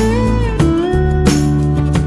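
Background music whose melody notes slide smoothly in pitch.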